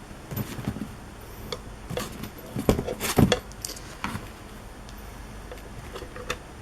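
Camera cables with 4-pin aviation connectors being handled and plugged into a mobile vehicle DVR: scattered metal and plastic clicks and rattles, loudest about three seconds in.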